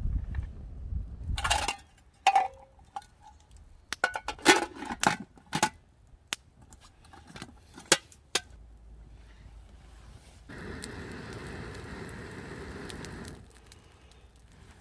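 Metal camp cookware clinking and knocking as it is handled, a series of sharp clinks over several seconds, followed by a steady hiss lasting about three seconds.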